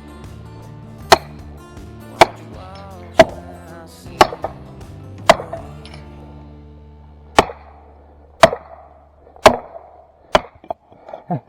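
Felling wedges being driven into the back cut of a leaning tree, struck hard about once a second: nine sharp blows, with a short pause about halfway through.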